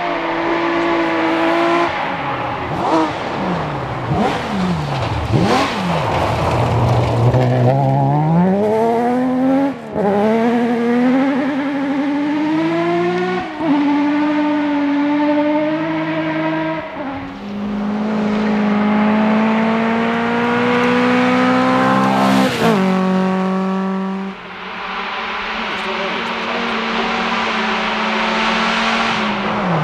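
Rally car engine under hard acceleration, climbing in pitch through the gears, with a sharp drop at each upshift, about four times. Between shifts it holds a steady high note.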